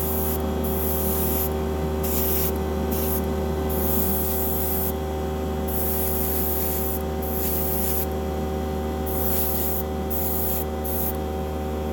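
Airbrush spraying paint in short hissing bursts, about one a second, as the trigger is pressed and released, over a steady motor hum with a few held tones.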